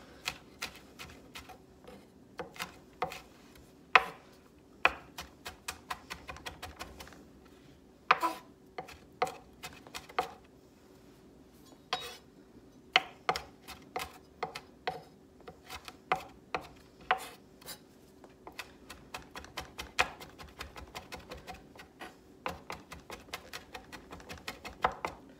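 Kitchen knife finely chopping garlic cloves on a wooden cutting board: irregular knocks of the blade against the board, coming in quick runs of several a second with short pauses between.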